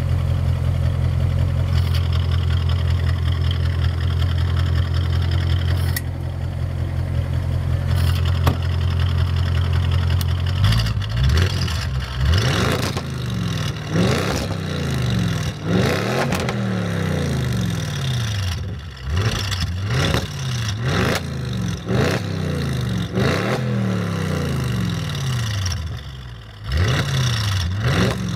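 Audi RS6's twin-turbo 4.0-litre V8 through a Milltek exhaust, idling steadily, then about ten seconds in revved again and again in short blips, the pitch climbing and falling back each time.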